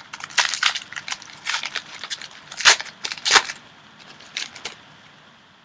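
Foil trading-card pack wrapper crinkling as it is torn open and handled: a quick run of sharp crackles, two of them louder near the middle, dying away shortly before the end.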